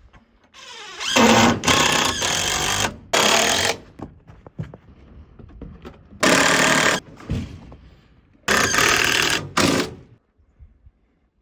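A handheld power tool run in three bursts of one to three seconds each. It spins up with a rising whine at the start of the first burst.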